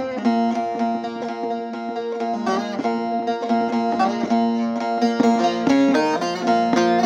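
Bağlama (Turkish long-necked saz) played solo: a fast melody of plucked notes with steady lower strings ringing underneath.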